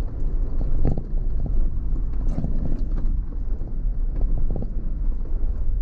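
Off-road vehicle driving slowly over a rough dirt track: a steady low engine and tyre rumble with irregular knocks and rattles as the wheels go over stones and ruts.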